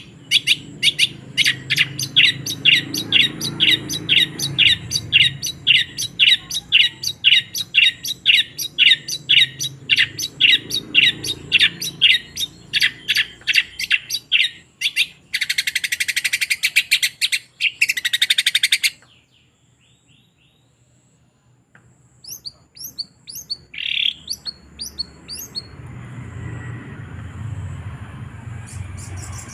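Long-tailed shrike (cendet) singing. It opens with a long run of rapid, repeated down-slurred notes, about three a second, then gives a harsh buzzing rattle for a few seconds. After a short pause, thin high chips follow near the end.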